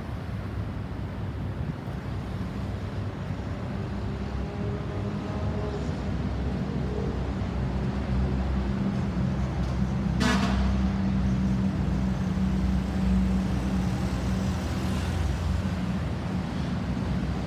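Road traffic with a heavy vehicle's engine running, a steady low drone growing louder past the middle, and one short sharp toot about ten seconds in.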